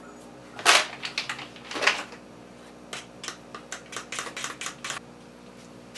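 A metal spoon stirring thick batter in a stainless steel bowl, ticking against the bowl's side in a quick run of light clicks, about four or five a second, in the second half. Near the start come two rustles of the plastic bag of almond flour being handled.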